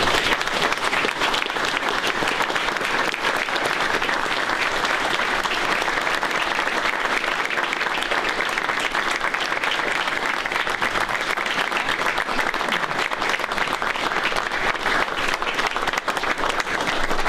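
A large indoor audience applauding steadily, warm applause that holds at an even level with no let-up.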